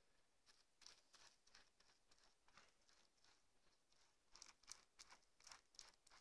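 Faint, irregular scratchy rubbing strokes of fingers smoothing wet plaster cloth over a foam and bubble-wrap riser, coming more often near the end.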